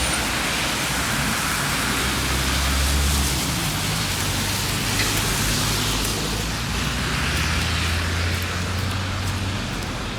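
Street traffic on a slushy road after snowfall: a steady hiss of tyres through wet snow, with a low vehicle rumble that swells twice as vehicles pass.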